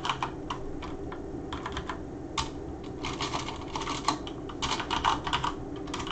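Typing on a computer keyboard in short bursts of rapid keystrokes with brief pauses between them, as in typing a search.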